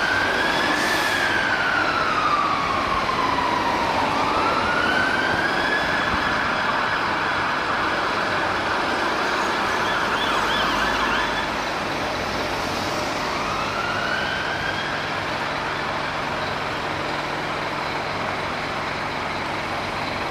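UK emergency vehicle siren wailing in slow rising and falling sweeps over traffic noise. The siren drops out about fifteen seconds in, leaving steady road and engine noise.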